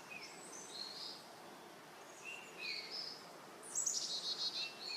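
Birdsong ambience: short high whistled bird notes over a faint steady hiss, with a louder rapid trilling call phrase about four seconds in.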